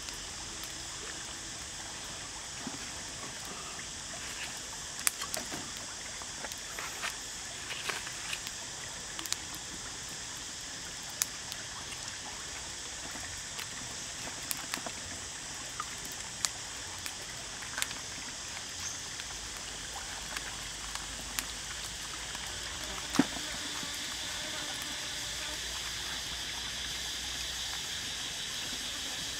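Scattered light clicks and taps as bamboo skewers are worked through a whole raw chicken by hand, with a sharper knock about two-thirds of the way in. Under them runs a steady high hiss of outdoor ambience.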